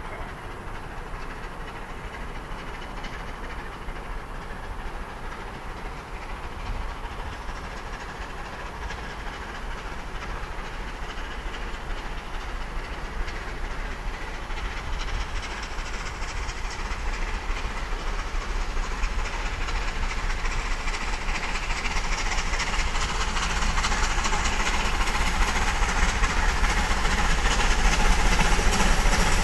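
Southern Railway Bulleid Battle of Britain class pacific 34067 Tangmere, a three-cylinder steam locomotive, approaching with its train. Its exhaust and wheel-and-rail noise grow steadily louder as it comes near.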